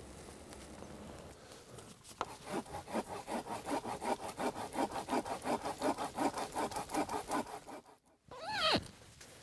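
Fast, even rasping strokes, about four or five a second, like a hand saw working through wood, stopping abruptly about eight seconds in. A short sweep falling in pitch follows.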